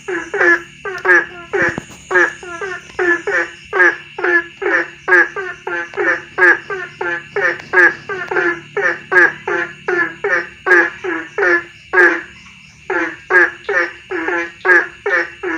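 Frog calling at night in a fast, even series of short croaks, about two a second, with a brief pause about twelve seconds in.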